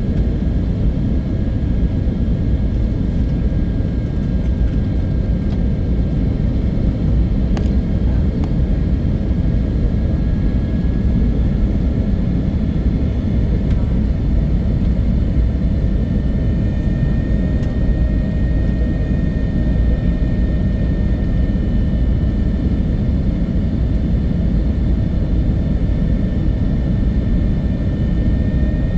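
Airliner on its landing approach or rollout: a steady low rumble with a faint, high engine whine that drifts slowly in pitch.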